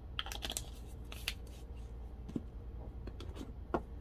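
Plastic glitter jars and their screw-on lids being handled: quick clicks and rustles in the first second and a half, a light tap past the middle and a sharper knock near the end, over a steady low hum.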